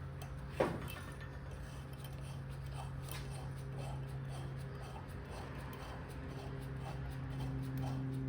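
Steady low machine hum in a workshop, with a second higher hum joining near the end, one sharp click about half a second in and faint scattered light ticks.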